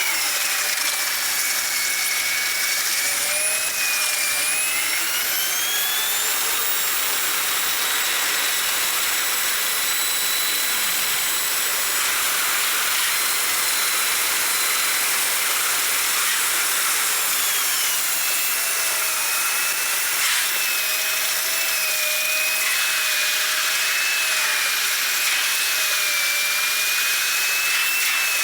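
Train running, with a steady high hiss and thin whining tones that slide slowly up and down in pitch.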